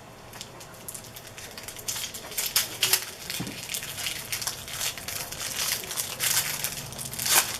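Plastic wrappers of trading card packs being torn open and crumpled: a busy run of sharp crinkles and crackles that builds after the first couple of seconds, loudest near the end.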